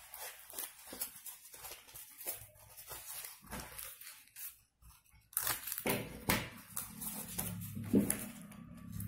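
Dry corn husk crackling and rustling as it is handled and snipped with scissors, the crackles loudest a little past halfway. A low steady hum comes in near the end.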